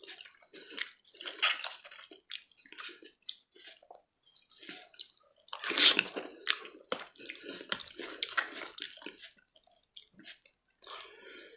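Close-miked wet chewing, slurping and lip-smacking of a man eating soft cooked camel brain off a spoon, in irregular bursts with short pauses; the loudest, wettest burst comes about six seconds in.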